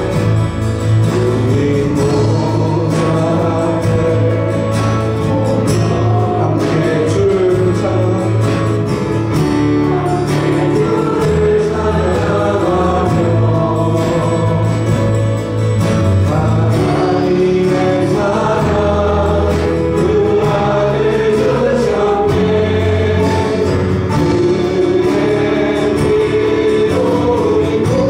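Church praise band and singers performing a Korean worship song: many voices singing together over acoustic guitar and held bass notes.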